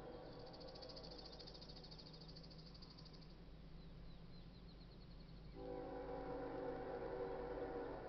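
Distant air horn of an approaching BNSF GE ES44DC locomotive sounding for the crossing. A multi-note chord cuts off right at the start, and a second long blast begins a little over halfway through. In the gap a high rapid trill sounds for about three seconds, followed by a few faint chirps.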